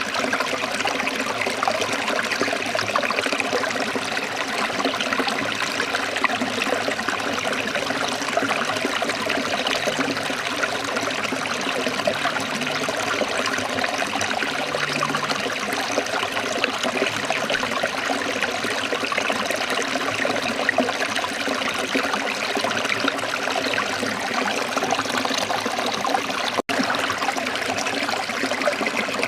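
Running water, a steady trickling flow with no pauses, cutting out for an instant near the end.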